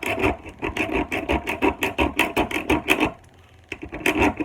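A serrated knife blade drawn through a block sharpener, its serrations rattling over the sharpening rods in a quick train of clicks. The clicking stops about three seconds in and starts again for a second pass near the end.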